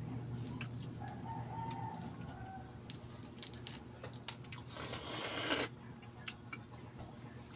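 Balut eggshell cracking and peeling under fingertips in small, scattered clicks. A faint rooster crow comes about one to two and a half seconds in. Near the middle there is a one-second slurp as the balut broth is sipped.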